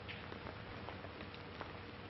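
Surface noise of an old optical film soundtrack: a steady hiss with scattered crackles and a faint steady hum, with no dialogue.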